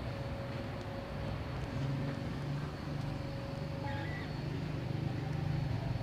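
Urban outdoor background noise: a steady low rumble, like nearby traffic, with a faint steady hum.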